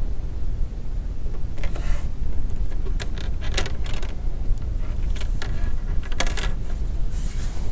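Short, scratchy crinkles of thin plastic backing film being peeled off adhesive strips on a phone's front frame with a tool, with the frame being handled, over a steady low hum.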